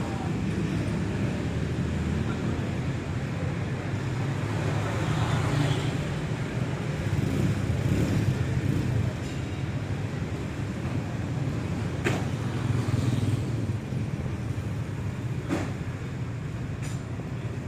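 Steady low rumble of road traffic, with a couple of brief sharp clicks in the second half.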